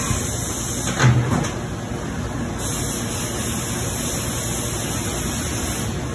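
Coolant spraying steadily inside the enclosure of a Haas VF-2SS CNC vertical mill, an even hiss like running water, with one brief low thump about a second in.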